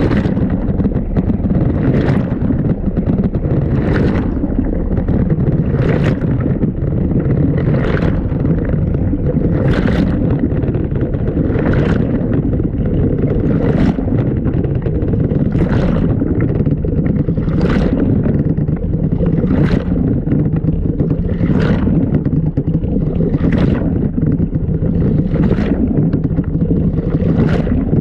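LG washing machine drum turning during a wash, heard from inside the drum: a steady low churning of water and load, with a splash about every two seconds as the drum tumbles the wash.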